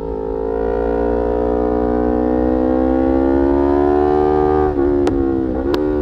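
Yamaha R3's 321 cc parallel-twin engine through an Arrow aftermarket exhaust, pulling with the revs climbing steadily. Near the end the revs drop sharply twice as gears are changed, with two sharp clicks, over a low wind rumble.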